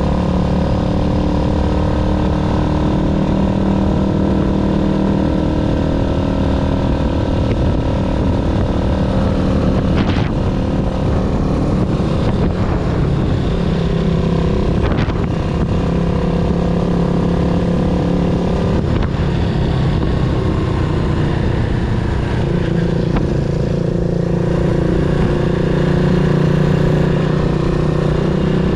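Yamaha SR400's air-cooled single-cylinder four-stroke engine running under way, its pitch holding fairly steady with small shifts, with a few short sharp clicks. The engine has developed an unexplained abnormal noise after ten years of storage.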